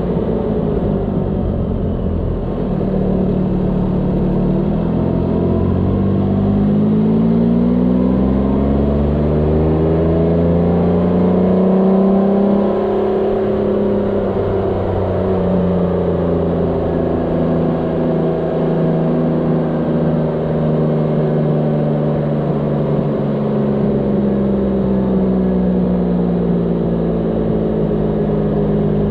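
Motorcycle engine heard from the rider's seat, running on a winding road with its pitch rising and falling with the throttle: it climbs steadily over the first ten seconds or so, drops about twelve seconds in, then rises and eases off gently through the curves.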